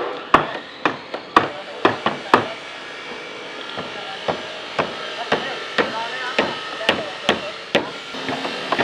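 Hammering on a construction site: a run of sharp hammer blows, uneven at first and then settling into a steady beat of about two strikes a second.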